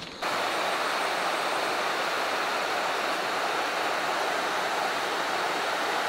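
Steady, even rush of a tall waterfall in full, fast flow, cutting in abruptly a moment in.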